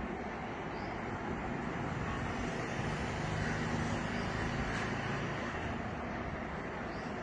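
Road traffic noise, a steady rumble, with a vehicle engine growing louder and passing in the middle.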